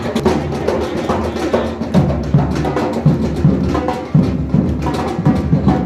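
Drums played live as a group, a steady beat of deep drum strokes that stands out more clearly from about two seconds in.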